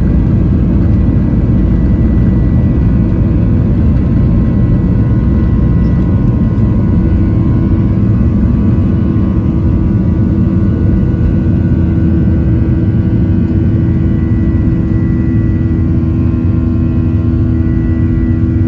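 Cabin noise of a Boeing 737-900ER on its takeoff roll, heard from a window seat over the wing: its CFM56-7B turbofans at takeoff thrust, a loud steady rumble with a few steady whining tones. The noise grows slightly quieter toward the end as the jet lifts off.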